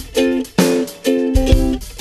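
Background music: a strummed plucked-string instrument playing chords in a steady rhythm over a low beat.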